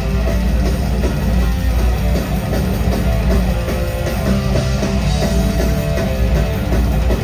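Loud rock band playing live, electric guitar to the fore over bass and drums.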